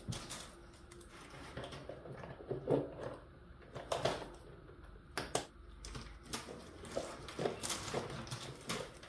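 Flexible plastic toy race track being snapped together and handled: irregular light plastic clicks and rattles as the linked track segments are joined and laid down.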